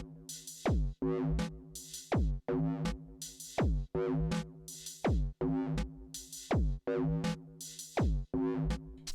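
Erica Synths Perkons drum machine playing a looped pattern of its kit '01' percussion-and-synth sounds, with no effects added. The loop has drum hits that drop quickly in pitch, short hissy hi-hat-like hits and held synth tones, repeating evenly.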